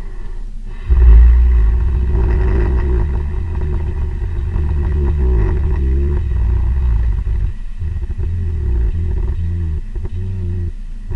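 Hibernating American black bear snoring. A long, low snore starts suddenly about a second in and lasts several seconds, then a second, weaker one follows.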